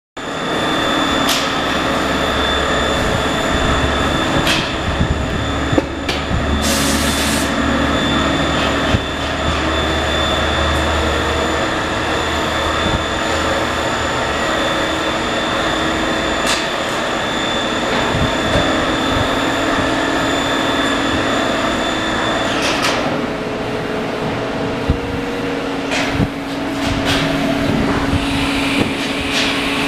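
Steady mechanical hum of workshop machinery with a few high whining tones. The tones stop about three quarters of the way through, and there are scattered knocks and clicks.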